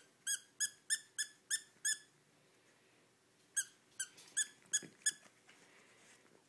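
A dog's plush squeaky toy being squeezed by hand: two runs of about six short squeaks each, roughly three a second, with a pause of about a second and a half between them.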